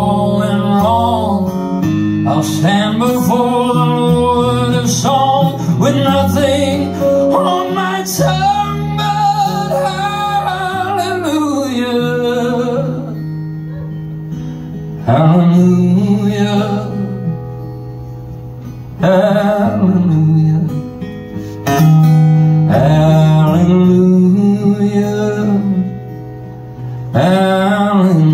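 Man singing a slow ballad with long held notes while strumming an acoustic guitar, heard live through a small PA. Between the sung phrases the guitar carries on alone, softer.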